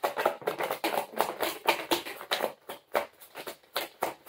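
A deck of tarot cards being shuffled by hand: a quick, irregular run of soft papery slaps and flicks, several a second.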